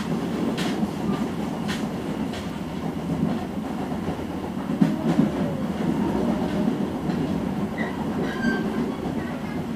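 A passenger train coach running along the track, a steady low rumble with a few sharp clicks from the wheels passing over rail joints in the first half.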